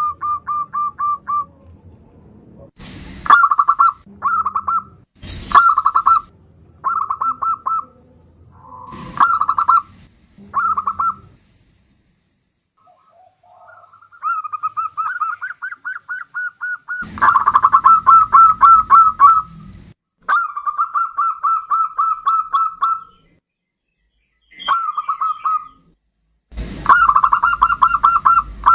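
Zebra dove (perkutut) cooing in phrases of rapid pulsed notes, one phrase after another with short pauses between, the longest phrases near the middle and the end. Two sharp clicks come about 3 and 5 seconds in.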